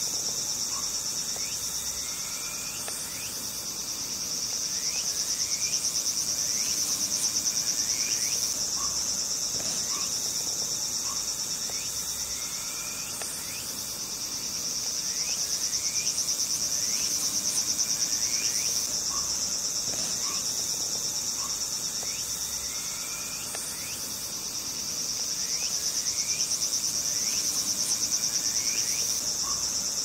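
High-pitched insect chorus: a rapid, steady trill that swells and fades about every ten seconds, with faint short rising chirps underneath.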